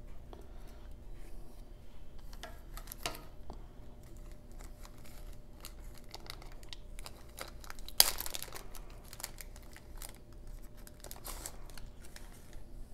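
Wax-paper wrapper of a 1990 Score baseball card pack being snipped with scissors and peeled open, crinkling, with one sudden loud crackle about eight seconds in.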